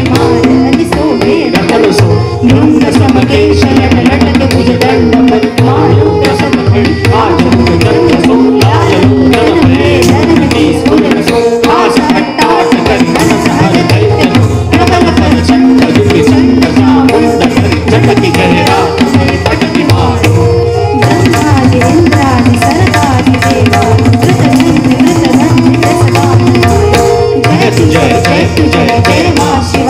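Live kathak accompaniment: tabla playing a dense run of strokes, the bass drum booming underneath, over a steady repeating melodic line from harmonium and sarangi.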